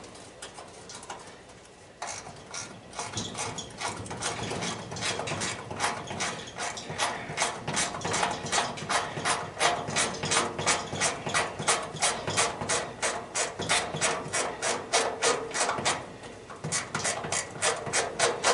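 Ratchet wrench clicking steadily as it is worked, about four clicks a second. The clicking starts about two seconds in, pauses briefly near the end, then resumes.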